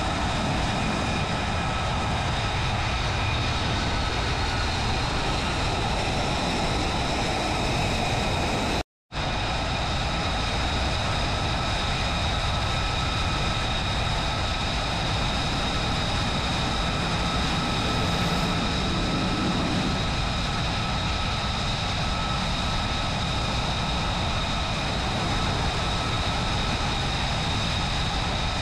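F-35B jets' F135 turbofan engines running at low power on deck as one jet taxis, a steady loud rush with a high whine on top. The sound drops out for a moment about nine seconds in.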